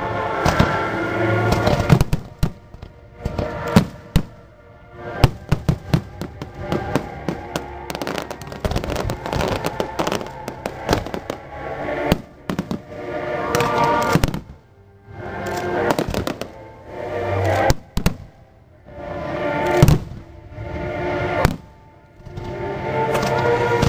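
Aerial fireworks shells bursting in rapid volleys of sharp bangs, densest in the first half, over the show's orchestral score playing through loudspeakers and swelling up and falling back every couple of seconds.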